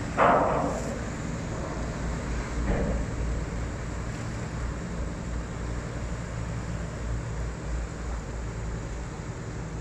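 Car ferry's engines running with a steady low, throbbing drone as its propellers churn the water into wash. A brief louder sound cuts in about a quarter-second in, and a fainter one comes near three seconds.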